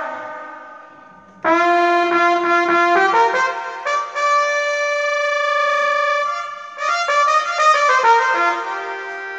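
Roland Lucina AX-09 keytar playing a solo melody: a held note dies away, then quick runs of notes alternate with long held notes, and a final note is sustained.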